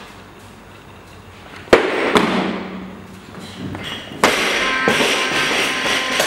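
A barbell snatch: a single sharp knock of the loaded bar about a second and a half in as it is pulled and turned over, then a couple of seconds later a burst of clapping and cheering from onlookers while the bar is held overhead.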